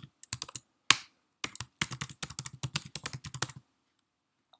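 Typing on a computer keyboard: a quick run of key clicks, with one louder stroke about a second in, stopping about three and a half seconds in.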